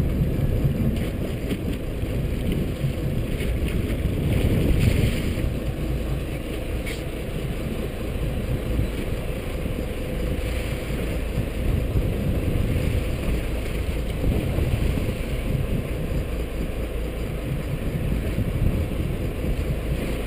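Sportfishing boat's engine running, a steady low rumble with a faint hum, with wind on the microphone.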